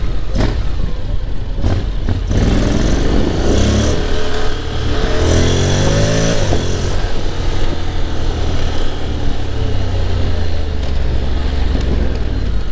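Honda X-ADV's 745 cc parallel-twin engine accelerating hard, its note rising in pitch twice and dropping off sharply after the second rise, as the dual-clutch gearbox takes the next gear. Wind rushes over the helmet microphone.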